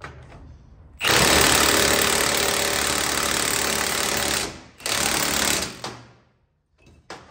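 Cordless impact wrench hammering in two bursts, one of about three and a half seconds and then a shorter one of about a second, at the nut of a strut spring compressor.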